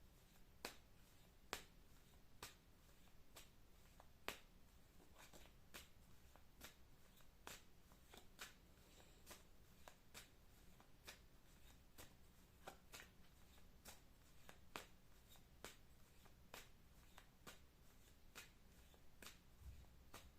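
A deck of playing cards being shuffled by hand, faint: a soft crisp snap of cards roughly once a second over a low steady room hum.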